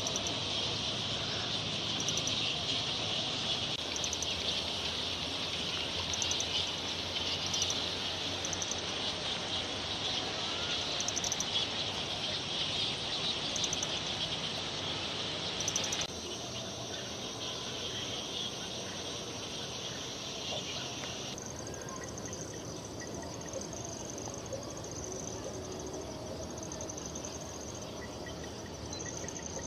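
Dense high-pitched chatter of a straw-coloured fruit bat (Eidolon helvum) colony on the wing, with a shrill pulse about once a second. The sound changes abruptly about halfway through and again a few seconds later, the chatter dropping away to leave a thinner, steady shrill trilling.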